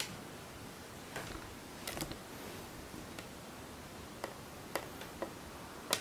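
Scattered light clicks and taps from an Apple Watch and its silicone sport band being handled. The loudest comes near the end, as the watch is set down on a wooden table.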